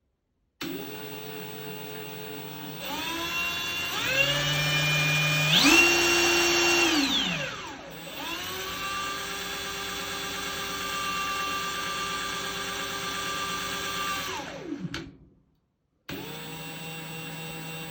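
Kobalt 24 V brushless impact wrench spinning a deep impact socket with no load, so it whirs without hammering. The motor whine steps up in speed a few times, winds down, spins back up and holds steady, then winds down again near the end.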